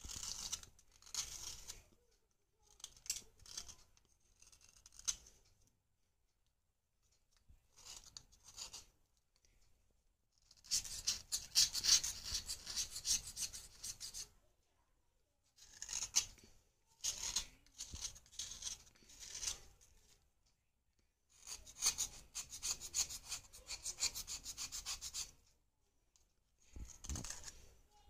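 Knife blade scraping powder off a hard bread bar, in bouts of quick rasping strokes with short pauses between. The longest unbroken runs of scraping come in the middle and toward the end, followed by a dull bump.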